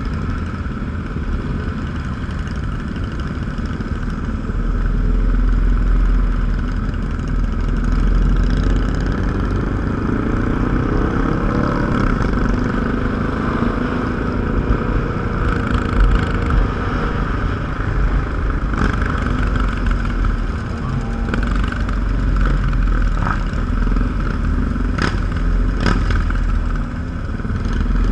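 Motorcycle engines running as a large group of bikes rides along, one engine's pitch rising and then falling back between about ten and fourteen seconds in. A few sharp clicks come near the end.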